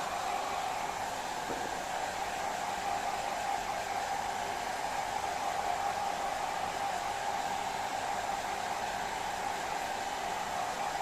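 Hand-held hair dryer running steadily, its fan blowing with a constant hiss and an even motor hum.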